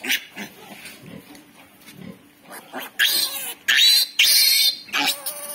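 Newborn piglet squealing as its needle teeth are clipped. Softer sounds at first, then loud, high-pitched squeals from about three seconds in.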